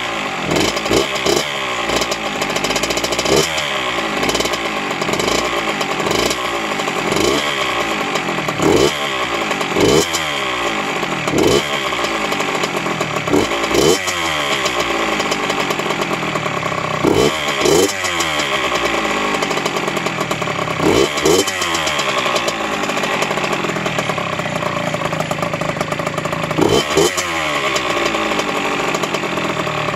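2003 Honda CR85R's 85cc single-cylinder two-stroke engine running on its first start after a top-end rebuild, blipped again and again so each rev rises sharply and falls back to idle, with a steadier stretch of a few seconds later on.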